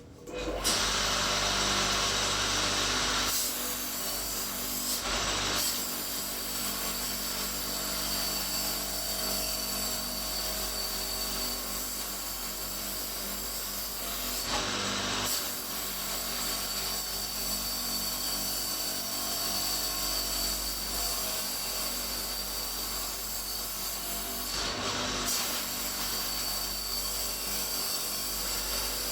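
Homemade tube-cleaning machine with motor-driven angle-grinder wire brushes running and scrubbing rust and oil off a steel square tube: a steady power-tool noise with a high whine. It starts about half a second in, is loudest for the first few seconds, and dips briefly a few times.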